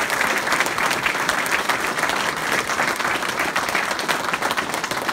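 Audience applauding: many people clapping together in dense, steady applause.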